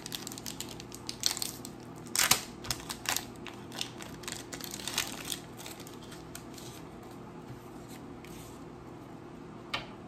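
Pokémon trading cards and a foil booster-pack wrapper being handled: irregular crinkling, rustling and clicking, busiest in the first half, with one sharp tick near the end.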